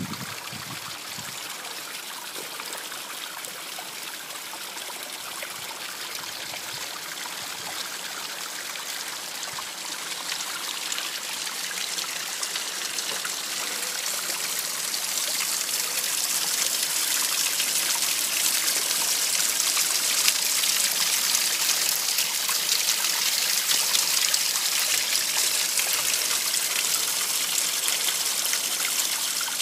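Small hillside spring trickling and splashing in a thin fall over rock. It grows steadily louder through the first half, then holds steady.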